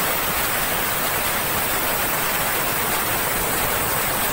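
Aluminium stovetop pressure cooker whistling: steam hissing steadily out past the weight on its vent as the cooker reaches full pressure. Each such whistle is counted to time the cooking.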